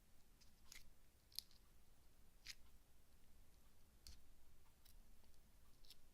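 Faint, scattered sticky clicks of slime being handled, about six irregular clicks in all.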